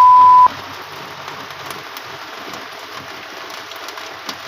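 Heavy rain falling steadily, with scattered faint drips. A loud, steady electronic beep lasts about the first half second.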